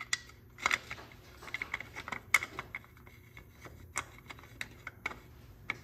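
Irregular small clicks and taps of screws being handled and fitted by hand into the filter cover of a Hydro-Gear ZT-3400 transaxle. The sharpest tap comes a little past two seconds in.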